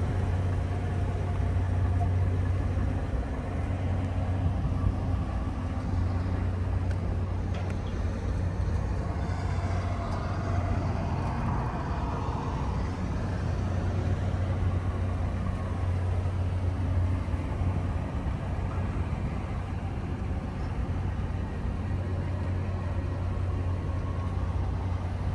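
A car engine idling: a steady low hum that does not change.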